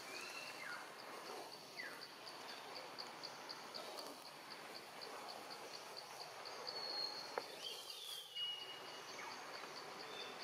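Outdoor daytime ambience dominated by an insect chirping in a fast, even pulse, about four high ticks a second. A few short high calls, some gliding downward, come near the start and again around three-quarters of the way through.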